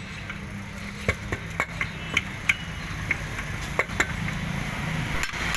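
Scattered light metal clicks and taps from motorcycle engine parts and tools being handled while the crankcase is dismantled, over a steady low rumble.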